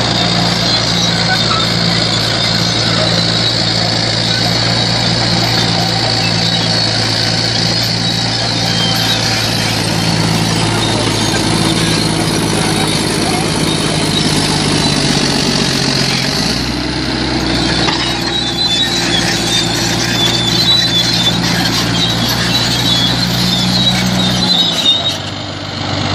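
Heavy bulldozer diesel engine running steadily under load, with a high steady whine over it. The engine note shifts about two-thirds of the way through.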